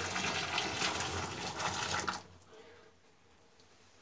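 Hot water poured from a stainless steel kettle, splashing onto tiles and running into a shower floor drain to rinse it; the pour stops suddenly about two seconds in.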